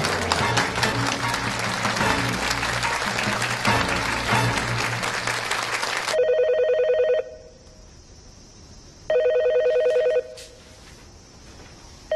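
A room full of people applauding over soft background music for about six seconds; it cuts off suddenly. An office desk telephone then rings twice with an electronic trilling ring, about a second each, and a third ring starts at the very end.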